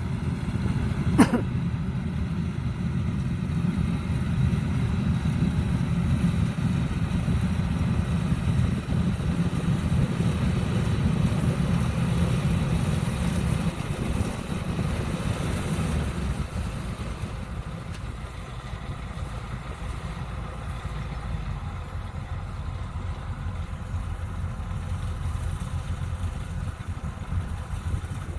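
Kubota DC-105X combine harvester running steadily as it works a rice field, its diesel engine and machinery making a dense low drone. There is one sharp click about a second in, and the sound eases to a quieter level a little past halfway.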